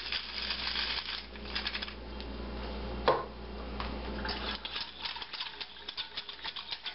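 Wire whisk clicking rapidly against the sides of a stainless steel saucepan as gravy is whisked, with one sharp metal clink about three seconds in as the whisk is set down in the pan, then sparser, softer ticks.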